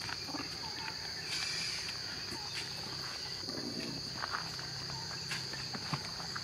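Steady high-pitched drone of insects in the forest, with a few faint rustles and footfalls.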